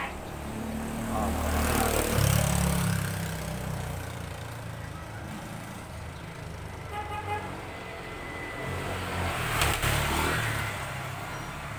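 Road traffic passing: a low vehicle rumble swells and fades twice, about two seconds in and again near the ten-second mark.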